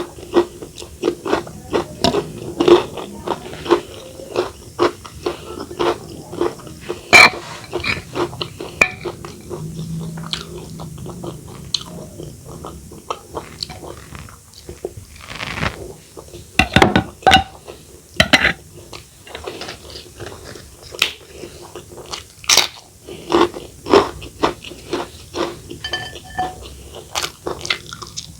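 Close-miked eating sounds: irregular crunching bites and chewing, with a few light ringing clinks near the end.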